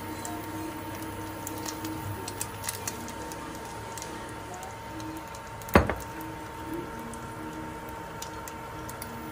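Kitchen sounds at a non-stick pan on a portable induction cooker: a steady high whine and low hum, light ticks as chopped onion is dropped by hand onto frying egg, and one sharp knock a little before six seconds in.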